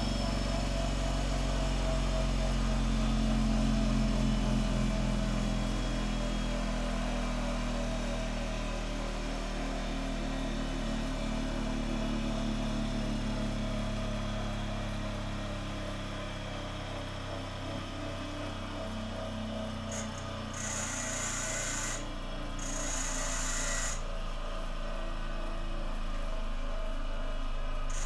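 Bench grinder motor running steadily. Twice, about three-quarters of the way through, there is a short hiss of a steel nail being ground against the wheel to shape it into a drifting tool.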